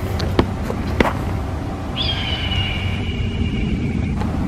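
A hawk gives one long scream about two seconds in, starting high and sliding down slightly before it trails off. Underneath is a steady low rumble, with two sharp clicks in the first second.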